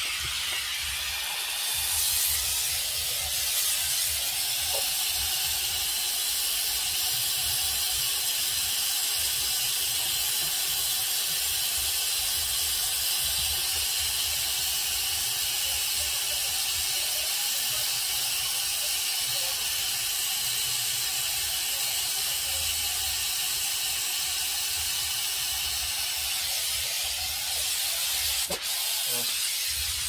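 Gas brazing torch flame hissing steadily while it heats the copper refrigerant pipe joints at a refrigerator compressor.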